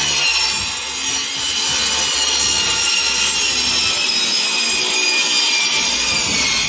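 Power saw cutting wood: one continuous, loud, high-pitched cut, its tone sinking slowly in pitch.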